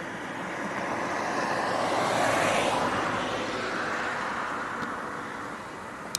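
A vehicle passing by: an even rushing noise that swells to its loudest about two seconds in, then slowly fades away. A sharp click comes at the very end.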